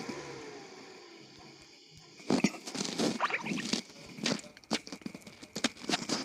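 A fading tone sliding down in pitch, then from about two seconds in a run of irregular clicks, knocks and rustles of objects being handled.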